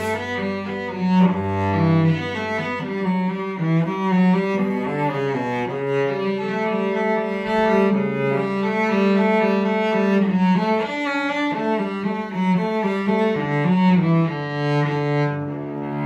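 Mittenwald-made Rembert Wurlitzer cello of about 1970, bowed solo in a flowing phrase of changing notes. A low note is held under the first three seconds.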